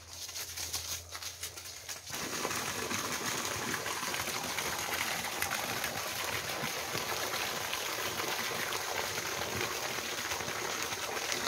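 A few footsteps on a leaf-littered dirt trail. Then, from about two seconds in, a steady splash of a thin stream of water falling from a pipe into a small pond.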